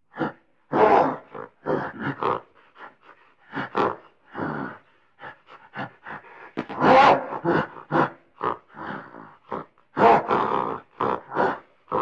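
Gorilla grunting: a fast, irregular string of short grunts, with louder ones about a second in, around seven seconds and around ten seconds.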